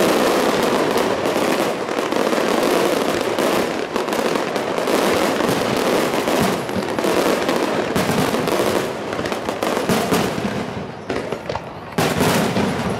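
Fireworks display: a rapid, continuous barrage of shell bursts and crackling, with a brief lull about eleven seconds in before more bursts.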